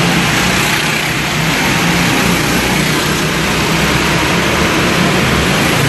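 Go-kart engines running steadily as several karts lap the track, echoing through a large indoor concrete hall.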